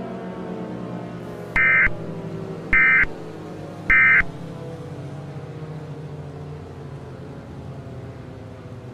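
Three short Emergency Alert System end-of-message data bursts, warbling digital tones about a second apart, closing the alert. Under them a low droning music bed plays throughout.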